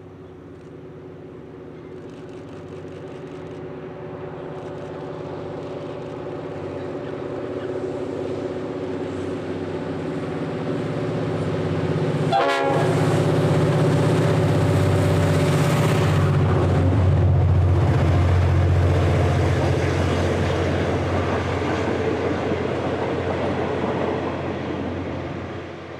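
Diesel locomotive hauling passenger carriages, approaching and passing close by: the engine grows steadily louder, peaks for several seconds as it goes past, then fades with the carriages' wheels running on the rails. A brief sharp crackle comes just before the loudest part.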